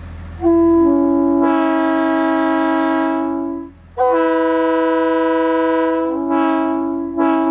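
Multi-chime train air horn blown in three long blasts, each a chord of several notes. The first opens on a single note, with the rest of the chord coming in about a second later, and the chord shifts partway through the second blast.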